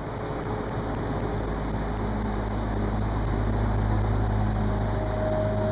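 A steady low motor hum over a rushing noise, with a faint higher tone coming in near the end.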